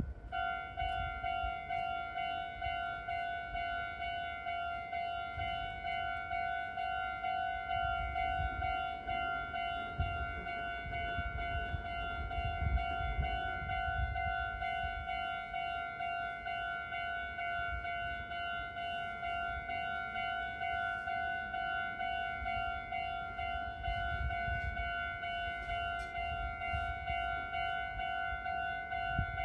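Japanese level-crossing warning bell ringing its electronic "kan-kan" alarm, repeating in a steady, even rhythm, with a low rumble beneath it.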